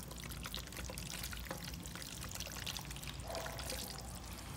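Creamy sauced spiral pasta being tipped from a pan into a glass baking dish: soft, wet sliding and slopping with many small clicks.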